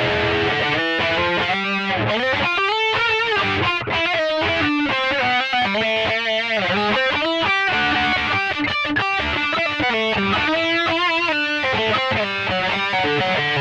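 Electric guitar played through the Mooer GE100 multi-effects unit's P21 'Metal Rhythm' distortion preset: heavily distorted riffs and single-note lines, some notes bent or shaken with vibrato.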